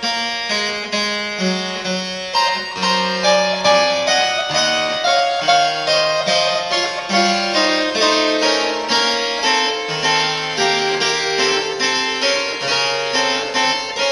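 Instrumental background music: a steady run of sharply struck notes, each dying away quickly, about two or three a second.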